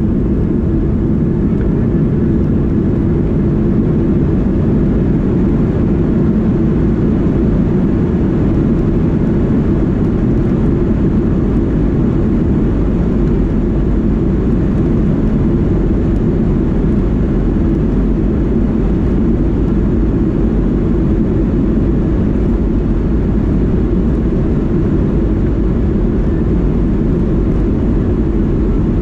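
Pratt & Whitney JT8D turbofan engines of a Boeing 737-200 running as the plane rolls along the runway, heard from inside the cabin as a loud, steady low rumble.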